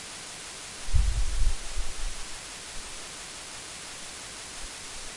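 Steady hiss of recording noise, with a brief low rumble about a second in that lasts about a second.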